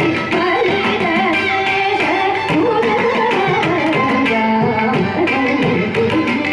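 Carnatic vocal performance in raga Arabhi: a woman singing melismatic, gliding phrases, with the violin shadowing her line and the mridangam playing steady rhythmic strokes underneath.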